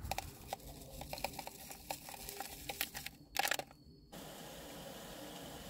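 Sachet of hot chocolate powder tipped and shaken into a ceramic mug: small ticks and rustles of the packet and falling powder, with a louder rustle about three and a half seconds in. Then a steady faint hiss.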